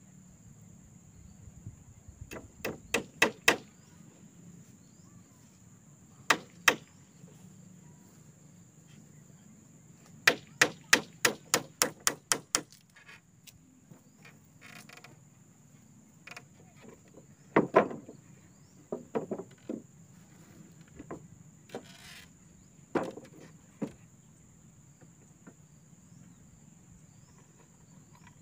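Bursts of sharp hand-tool blows on wood, several quick strikes in a row, the fastest run about four a second, then scattered single blows. Over them, a steady high-pitched insect drone.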